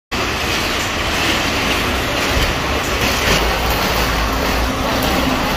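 Steady road noise and low rumble inside a moving vehicle.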